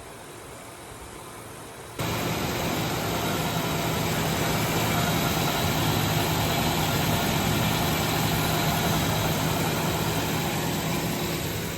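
1999 Ford Ranger engine idling steadily, with a low hum. It becomes much louder and closer abruptly about two seconds in.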